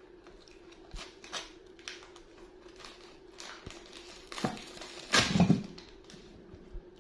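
Paper wrappers and a cardboard box of green bean cakes crinkling and rustling as they are handled and pulled open, in scattered small crackles, with one louder rustle a little after five seconds in.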